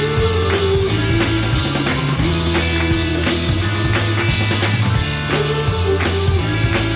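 Rock background music with a steady drum beat, bass line and guitar.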